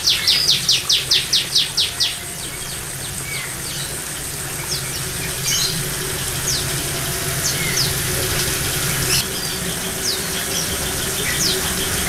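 Small songbirds calling in an aviary: a fast run of high repeated notes for the first two seconds, then short high falling chirps about once a second. A steady low hum runs underneath.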